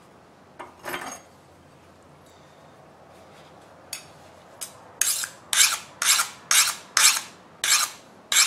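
A file skating across the edge of a freshly oil-quenched steel knife blade: one scrape about a second in, then seven quick strokes at roughly two a second. The file slides without biting, the sign that the quench has hardened the steel.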